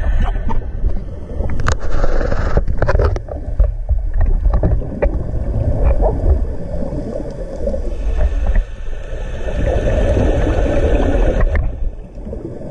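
Underwater sound of a scuba diver breathing through a regulator, muffled by the camera housing, over a steady low rumble. There are a few sharp clicks early on, and a long rush of exhaled bubbles runs from about eight to eleven and a half seconds in.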